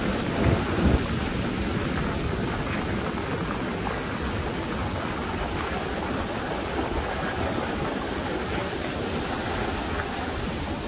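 Ocean surf breaking and washing up over a sand-and-cobble beach: a steady rush of water noise, with a couple of low thumps about a second in.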